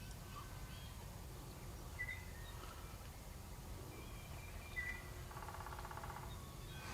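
Faint bird calls over quiet outdoor background noise: short chirps about two and five seconds in, and a brief rapid trill a little after five seconds.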